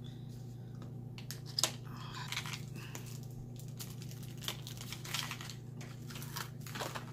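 Cosmetic product packaging being opened by hand: scattered crinkling and crunching rustles with small clicks, busiest in the second half, over a steady low hum.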